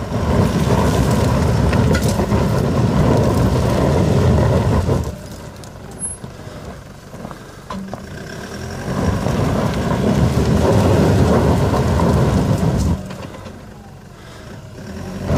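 Toyota Land Cruiser 120 diesel 4x4 climbing a steep earth step off-road: the engine is pushed hard in two long surges, the first about five seconds and the second about four, easing off in between, with scattered knocks as the tyres work over loose earth and stones.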